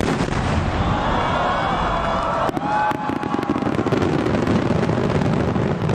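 Giant aerial firework shell bursting: a sudden deep boom that rolls on as a long rumble, with sharp crackles about two and a half seconds in and again near the end.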